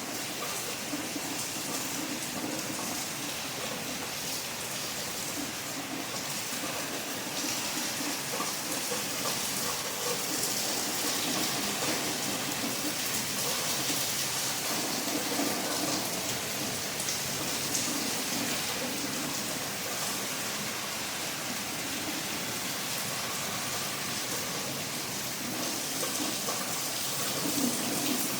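Steady rain falling and pattering on surfaces, a dense even hiss with a soft low rumble that swells and fades now and then.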